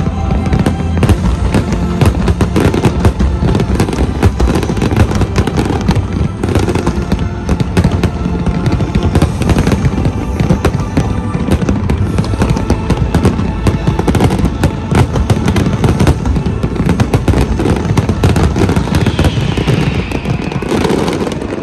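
Dense, continuous fireworks barrage: rapid bangs and crackling all the way through, with music playing underneath.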